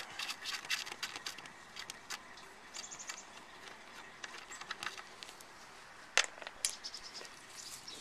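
Ratchet wrench clicking in short quick runs as the bolts on top of a grinder pump cover are loosened, with two louder, sharper clicks about six seconds in.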